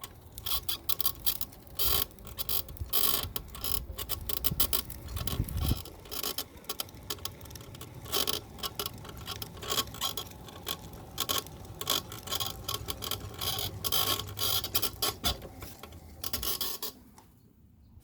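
Golden Technologies Buzzabout power wheelchair creaking and clicking irregularly over a low steady rumble as it rolls, the creaks stopping near the end. The creak comes from the seat post squeaking for want of lubrication.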